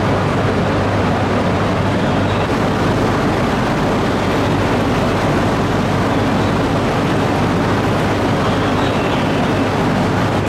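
Steady hum and whir of the E3 series Genbi Shinkansen's onboard equipment as the train stands at the platform, with a constant low drone underneath.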